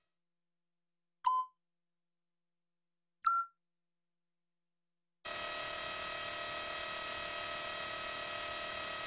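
Two short electronic beeps about two seconds apart, the second higher, from an animated plotter. About five seconds in, its synthesized motor sound starts: a steady hum of several held tones over a hiss, as the plotter arm begins drawing a circle.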